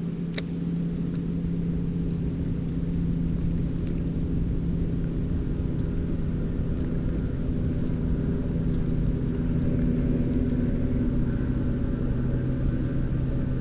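Bow-mounted Minn Kota Ultrex electric trolling motor running, a steady low hum of several held tones that grows slightly louder, with low rumble underneath. One sharp click comes just after the start.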